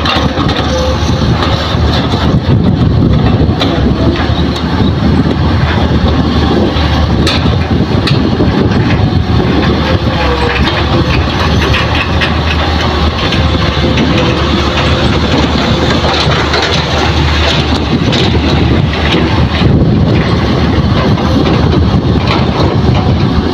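Hitachi hydraulic excavator's diesel engine running steadily under load while it works, with a steady low hum and a few knocks and rattles from the bucket and soil.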